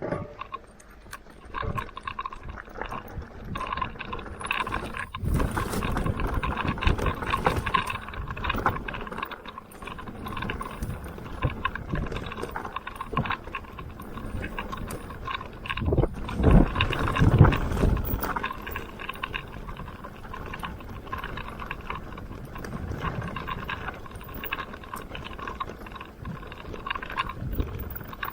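Mountain bike riding down a dirt trail: chain and bike parts rattling over rough ground with steady tyre and wind noise, and a few heavier thumps from bumps a bit past halfway.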